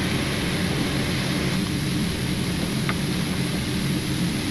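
Steady low rumble of a Boeing 777-300ER's flight deck on final approach, the aircraft's engine and flight noise heard inside the cockpit.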